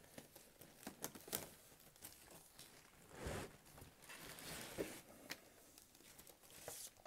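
Faint crinkling of a clear plastic bag, with light clicks, as a hard plastic comic-grading slab is handled inside it.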